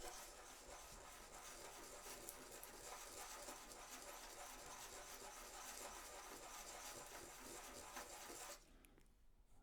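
Faint, continuous scratching and rubbing made of many small strokes, which stops shortly before the end.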